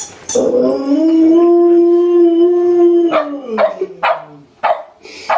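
A dog howling in one long call of about two and a half seconds that rises, holds and drops away at the end. It is followed by about five short, sharp barks.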